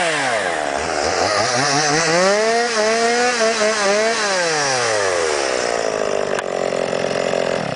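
Stihl MS 170 two-stroke chainsaw engine revved up from idle twice, its pitch wavering while held at high revs, then dropping back to a steady low idle before the engine is switched off at the very end.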